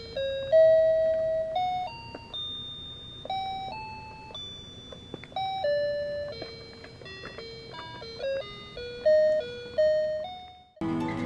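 Toy electronic keyboard playing a simple tune one note at a time, in clear chime-like tones. Near the end the tune cuts off and fuller background music takes over.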